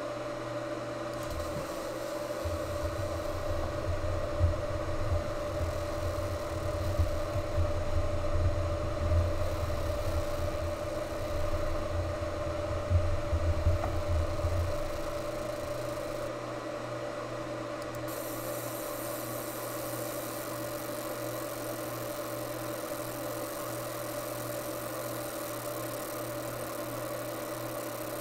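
30-watt fiber laser engraver running while it marks an anodised aluminium AR-15 lower: a steady machine hum with a clear mid-pitched tone over a hiss. From about two seconds in to about fifteen seconds a low rumble with a few louder bumps is added, and the hiss grows brighter near eighteen seconds.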